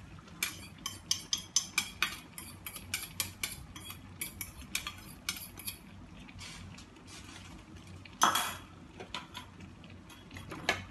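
Metal spoon scraping and tapping quickly against a stainless steel bowl as spice paste is knocked out of it into a soup pot, with a louder clank about eight seconds in. Then a ladle stirring in the pot, with light knocks against its side.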